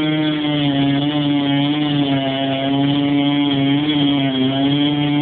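Two-stroke chainsaw engine running steadily at high speed, its pitch wavering slightly and dipping briefly about four seconds in.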